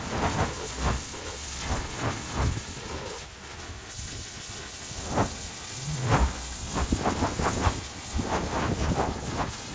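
Pressure washer jet hissing as it strips moss from a garage roof, with irregular knocks and splatters throughout and a brief lull about three seconds in.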